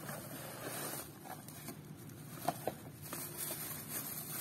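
Small cardboard box being handled and opened by hand: faint rustling and scraping, with two sharp little clicks about two and a half seconds in.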